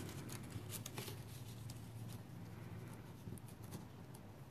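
Faint rustling and a few light ticks as baker's twine is pulled through a paper gift tag, over a low steady hum.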